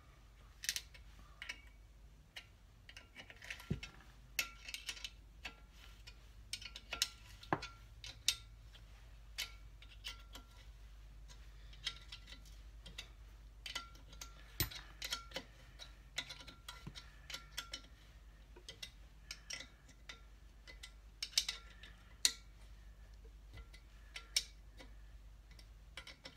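Irregular small metal clicks and clinks of a spanner working the sump plate bolts of a BSA Fury crankcase. The bolts are being nipped up gently, just enough to compress their spring washers.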